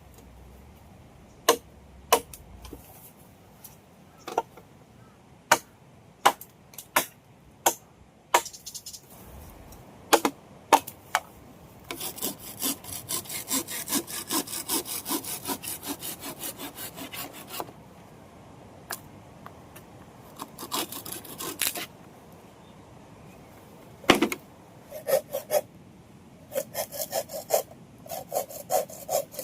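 Hand saw cutting wood in quick back-and-forth strokes, in spells from about twelve seconds in and again near the end. Before that there is a run of about a dozen separate sharp knocks.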